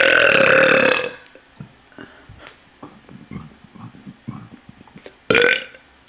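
A person burping: one long burp that ends about a second in, then faint clicks and small knocks, and a second, short burp near the end.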